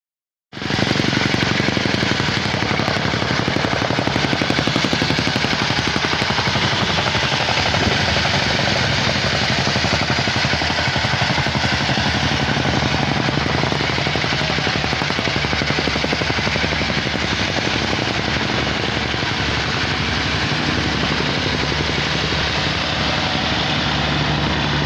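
A compactor's small engine running under load while the machine vibrates against the ground in a fast, steady rattle, compacting the fill bed for a concrete slab. It starts abruptly about half a second in.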